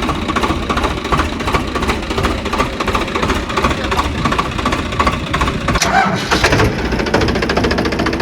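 An engine running steadily with a rapid, even knocking rhythm; the sound changes about six to seven seconds in.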